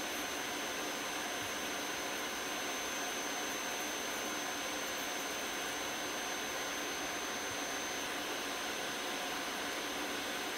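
Electric nail drill running at a steady speed as its bit scales down thickened, fungus-infected toenails: an even hiss with a thin high whine.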